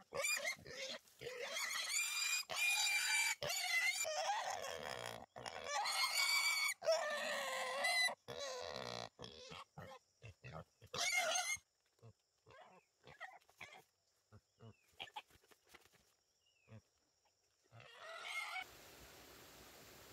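A wild boar caught in a trap squealing: loud, shrill, wavering squeals, chopped by abrupt cuts, for the first half. Then a scatter of short, fainter sounds, until the sound cuts off suddenly near the end.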